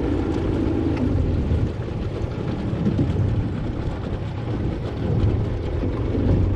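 Outboard motor running steadily with a low drone as it pushes a small aluminum boat along.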